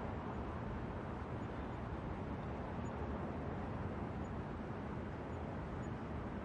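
New York subway station ambience: a steady low rumble and hiss with no distinct events.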